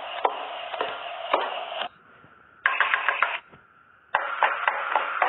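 Fingertip knocks on a door, played back as a recording through a phone app: three short stretches of hiss, each with several sharp taps, the second and third after brief pauses.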